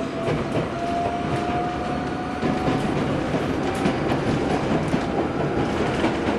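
Jōmō Electric Railway electric train, a former Keio Inokashira Line car, running as heard from inside the car. A thin motor whine rises slowly in pitch as the train gathers speed, over the steady rumble of the wheels and scattered rail-joint clicks.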